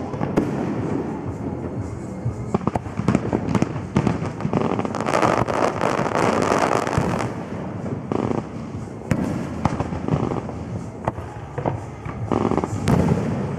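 Fireworks display: aerial shells bursting in repeated sharp bangs, with a dense stretch of crackling about five to seven seconds in.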